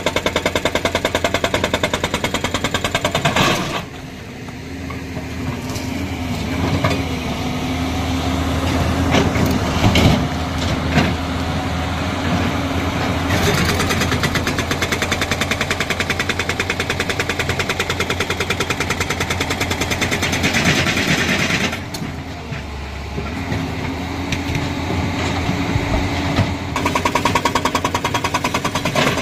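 Excavator-mounted hydraulic rock breaker hammering rock in rapid, evenly spaced blows. After about four seconds it gives way to tracked excavator diesel engines running steadily with a held hydraulic tone and a few sharp knocks. The breaker's rapid hammering returns near the end.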